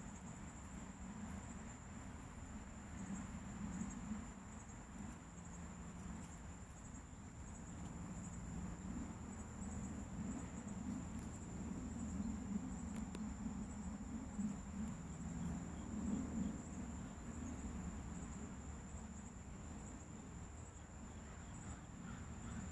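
Outdoor insect chorus: a steady, high, unbroken buzz from insects such as crickets, with a low rumble underneath.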